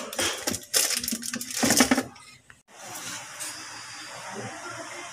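Plastic rustling and clattering as a bottle and a packet are handled in a refrigerator door shelf, cut off abruptly about two and a half seconds in. Then comes a steady hiss.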